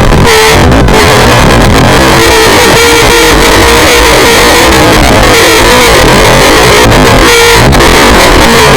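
Extremely loud, heavily distorted scream sound effect, clipped into a constant harsh wall of noise with a wavering pitched tone running through it.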